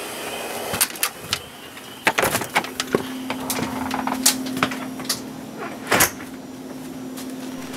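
Shower curtain pushed aside and the camera handled: a run of short clicks and knocks. From about three seconds in, a steady low hum sounds under them.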